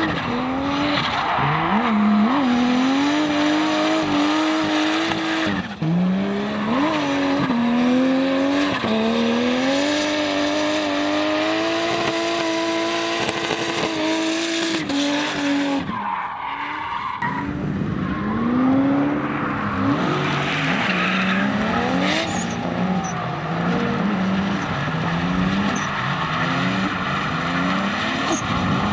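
Drift cars sliding with their tyres squealing, the engines at high revs. The first car's engine holds high and steady through long slides, dropping briefly and climbing back a few times. After a cut about 17 seconds in, a second car's engine revs rise and fall again and again as it drifts.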